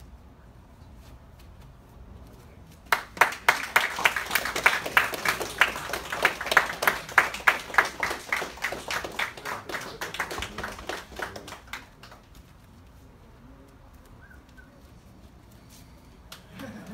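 A group of people clapping and applauding. It starts suddenly about three seconds in, is loudest at first, and dies away after about eight seconds.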